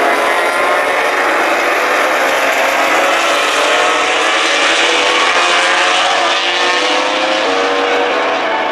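Several MotoGP racing motorcycles at high revs, their engine notes overlapping as they pass, with pitches climbing gently as they accelerate out of a corner.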